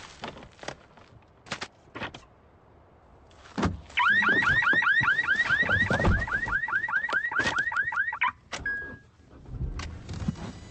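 Car alarm siren sounding a fast repeating warble, about five sweeps a second, for about four seconds before cutting off suddenly, followed by a short beep; the alarm signals a break-in. A few sharp clicks and a thud come before it.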